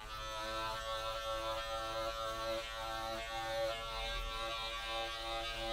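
Handheld electric carpet clippers running with a steady buzz as they shear down the yarn pile of a tufted rug to level it.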